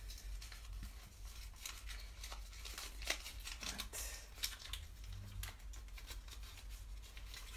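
Irregular small clicks and rustles, one a little louder about three seconds in, over a steady low hum in a small room.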